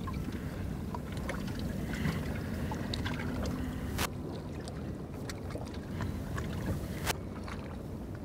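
Steady low wind and water noise aboard a small boat on open water, with scattered light ticks and two sharper clicks about four and seven seconds in.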